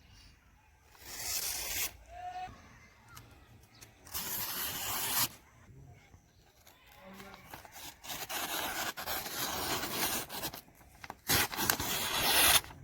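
Four rough rubbing or scraping strokes by hand on a surface, the third long and the last one the loudest.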